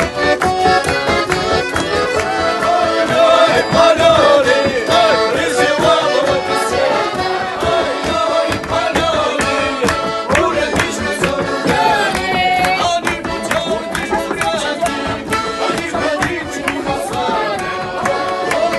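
Russian folk music led by an accordion playing a lively tune, with women's voices singing along.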